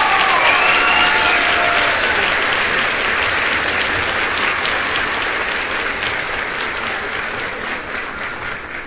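A crowd applauding and cheering, a few whoops over dense clapping that slowly dies away.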